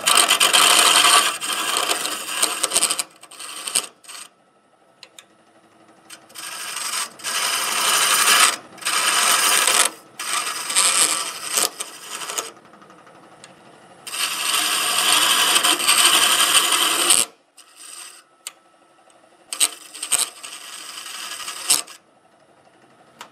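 A turning tool cutting a spinning wood blank on a lathe: three stretches of hissing, scraping cut lasting a few seconds each, with quiet pauses between as the tool comes off the wood. Near the end come a few short taps and scrapes.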